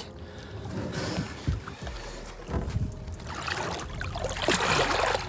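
Water sloshing and splashing at the side of a small boat as a lake sturgeon is lowered back into the river by hand and released, with a few low thumps in the first half and the splashing growing near the end.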